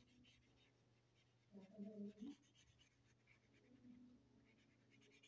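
Faint scratching of a felt-tip marker colouring on paper, in quick short strokes. A brief voice-like hum comes about a second and a half in.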